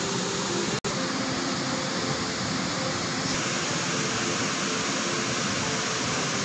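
Steady rushing of shallow river rapids over rocks, with a momentary dropout about a second in.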